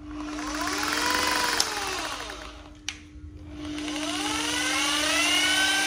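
Corded rotary hammer drill running free with no load, its motor whine rising and falling as the variable-speed trigger is squeezed and eased, then dying away. A click just before the middle, then the motor winds up again and holds at a steady high speed.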